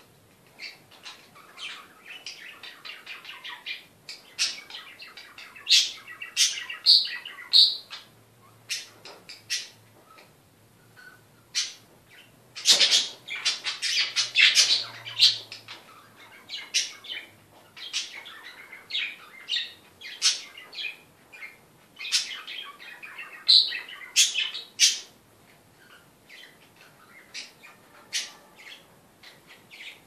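Pet parrots chirping: a long run of short, sharp calls that comes thickest about halfway through, with a few brief clear whistles.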